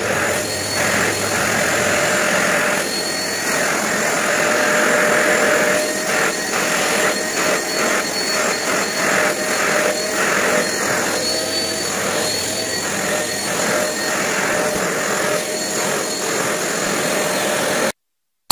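Derma DX700 handheld vacuum cleaner running with a steady whine over rushing air as its small brush nozzle is worked over a mattress; the pitch wavers a little as the nozzle moves. It cuts off abruptly near the end.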